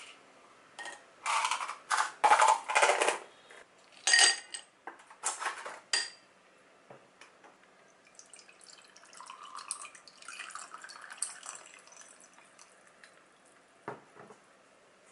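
Ice cubes dropped into a tall drinking glass, several sharp clinks in quick succession over the first six seconds. Then liquid is poured over the ice, a softer running trickle, and a short knock near the end as the pitcher is set down.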